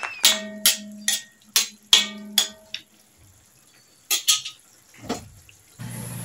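Metal ladle stirring ground pork picadillo in a wok and knocking against the pan, about seven ringing clanks in the first three seconds, then a couple of lighter clicks.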